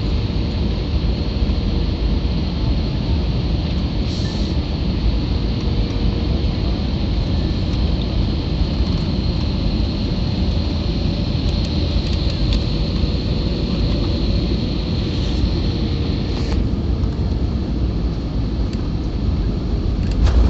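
Steady rumble of an airliner heard from inside the passenger cabin during landing, with a faint steady high whine over it.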